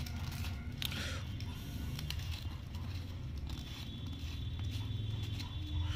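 Faint handling of a plastic jar of powder: the screw lid being twisted off and the foil seal torn open, with a light click about a second in, over a steady low hum.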